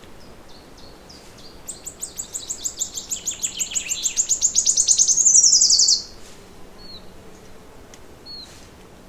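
A songbird singing a long trill of rapid repeated high notes that grows steadily louder over about four seconds, drops in pitch at the end and stops abruptly. A few soft single chirps come before and after it.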